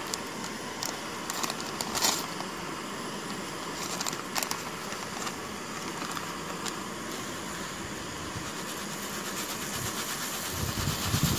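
Sahara Sailor collapsible canister gas stove burning under a pot of water being brought to the boil, a steady hiss with a couple of light clicks. Near the end, a packet rustles as dry food mix is poured into the pot.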